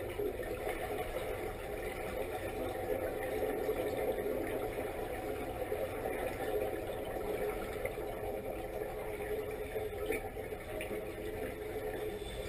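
Muffled underwater sound through a camera housing: steady bubbling and hiss of divers' exhaled air rising from their helmets.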